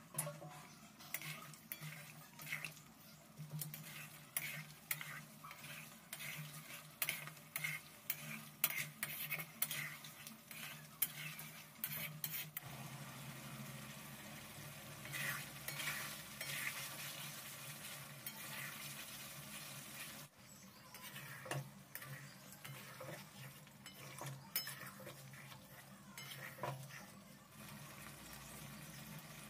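A spoon stirring and scraping in a cooking pan, with quick repeated scrapes and clicks for about the first twelve seconds, then a steady sizzle of the curry in the pan with occasional scrapes.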